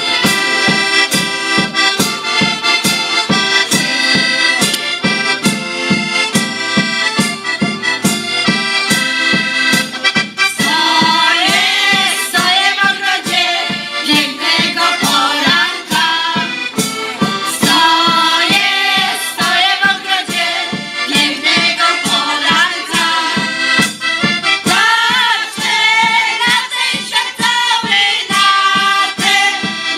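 Piano accordion playing a lively folk tune with a steady beat; about ten seconds in, a women's folk choir comes in singing over it.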